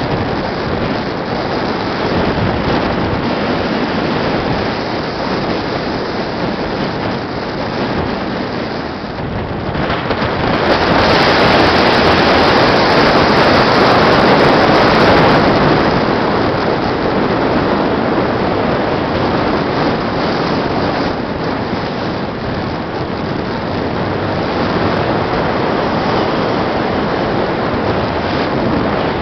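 Wind buffeting the microphone and road noise inside a moving Renault 19 Cabrio, a steady rushing. It swells louder for about six seconds some ten seconds in while the car passes through a rock tunnel.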